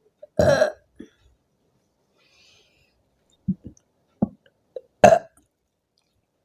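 A woman burping twice, about half a second in and again about five seconds in, with a few short, soft sounds between. The burps are brought up by drinking fizzy soda.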